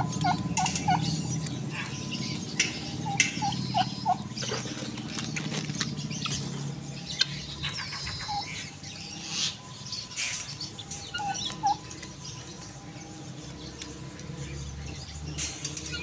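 Domestic turkeys calling in runs of short chirping notes, a few at a time, with scattered sharp clicks between them.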